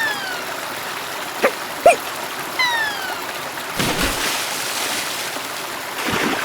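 Cartoon river ambience: water running steadily. Over it come short pops, two falling whistle-like glides and two splashes, the first about four seconds in and the second near the end.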